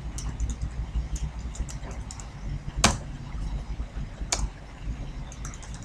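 Typing on a computer keyboard: a run of light key clicks with two louder, sharper strikes about a second and a half apart, over a steady low hum.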